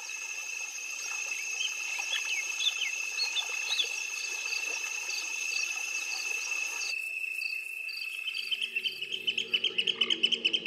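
Steady high-pitched insect trilling, with a few short bird chirps over it in the first few seconds. Near the end, soft background music comes in along with a quick pulsing chirp.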